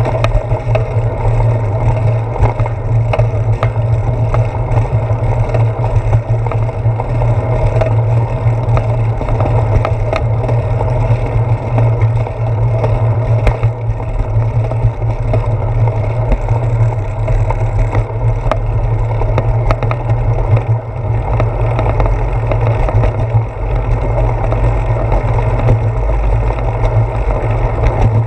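Steady low rumble of wind and road vibration picked up by a handlebar-mounted GoPro Hero 4 as a bicycle rolls along a concrete path, with scattered small clicks and rattles.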